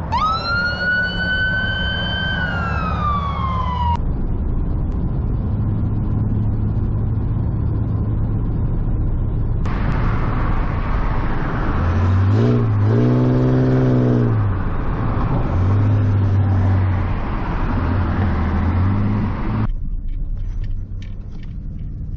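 A car on the move, heard in several short pieces: a whine that rises, holds and falls away in the first few seconds, then a steady low engine drone. From about ten seconds in there is louder road and wind noise, with the engine's pitch rising and falling a few times, until it cuts off near the end.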